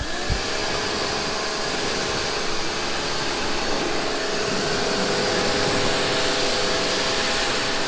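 Electric pressure washer running steadily, its motor humming as the spray gun sends a jet of water hissing onto a car's paint and glass. The motor comes up to speed right at the start.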